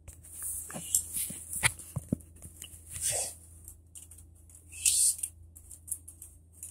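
Small plastic toy bricks clicking and rattling in the hands as pieces are handled, with scattered short soft sounds and a brief hiss about five seconds in.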